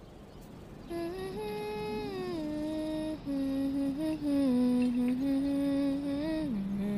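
A voice humming a slow tune of long held notes that step down in pitch, settling on a lower note near the end.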